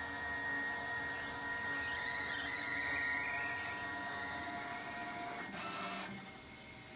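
Techsoft TS-30 CNC router's stepper motors moving the cutter head into its set position: a steady machine whine of several fixed tones, with a brief rush of noise about five and a half seconds in, after which the machine falls quieter.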